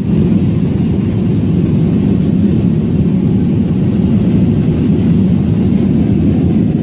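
Jet airliner cabin noise in flight: a steady low rumble of engines and rushing air, with a fainter hiss on top.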